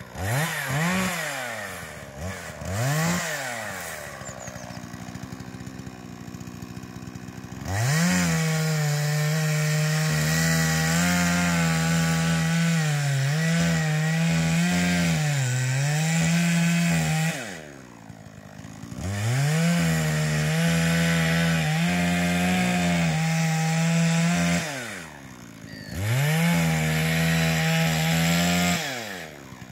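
Two-stroke chainsaw felling a pine tree. It gives two quick revs, idles for a few seconds, then runs at full throttle through three long cuts into the trunk. Its pitch sags under load, and it drops back to idle between cuts.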